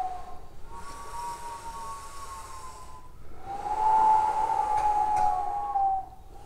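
Whistle-like overtone singing: two long held notes of about two and a half seconds each, the second louder and dipping slightly in pitch at its end, over a breathy hiss.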